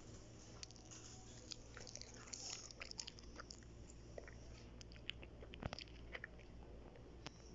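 Faint handling noise: scattered small clicks and crackles, with one sharper knock about two thirds of the way through, over a steady low hum.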